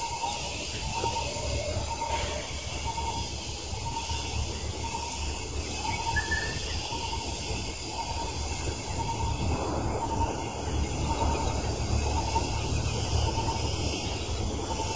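Outdoor background noise: a steady low rumble with a short, high note repeating about once a second.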